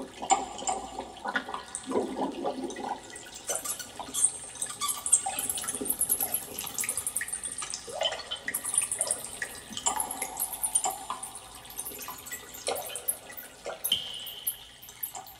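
Water dripping and trickling in a dense, irregular patter of drops, played back as a recording over a hi-fi loudspeaker system.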